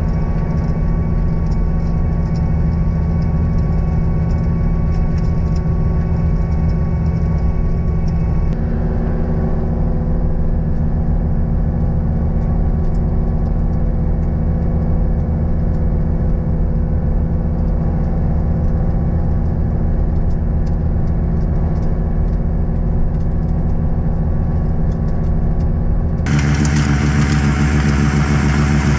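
Skid steer's diesel engine running at a steady speed, its pitch holding even. The sound shifts abruptly about eight seconds in, and again near the end, where it turns brighter and harsher.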